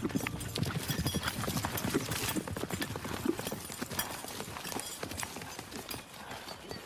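Horses' hooves clip-clopping: a dense run of hoofbeats that grows fainter toward the end.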